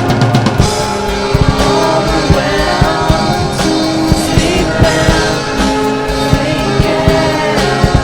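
Rock song: a drum kit playing a busy beat under guitar and a sung vocal line.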